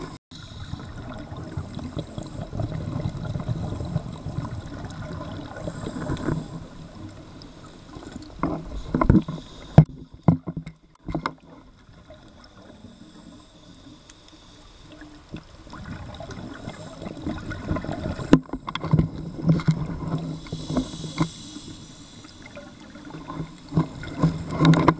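Muffled water movement heard through an underwater camera housing: a low, uneven rumbling wash with scattered knocks and clicks, louder around nine seconds in and again near the end, and a brief near-silent gap about ten seconds in.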